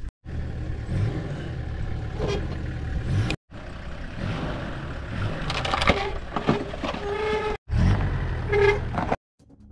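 A motor vehicle's engine running with a steady low rumble, heard in several short clips broken by abrupt cuts. Pitched horn-like tones sound a few times in the second half.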